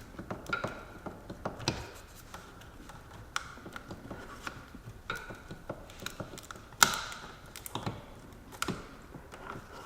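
Irregular light clicks and metallic taps of hand tools and a socket at work on a bolt, with one sharper knock about seven seconds in.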